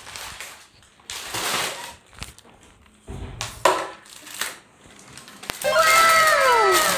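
Crinkling and crunching of a snack packet in a few separate bursts, then several overlapping falling tones near the end.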